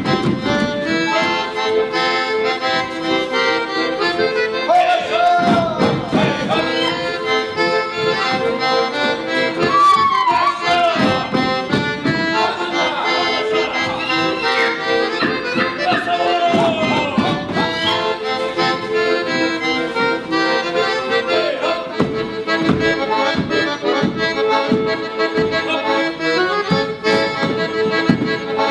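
Accordion-led Polish folk dance music with a steady beat.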